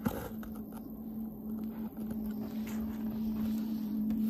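Steady low mechanical hum holding one pitch, with a sharp click at the start and faint rustling.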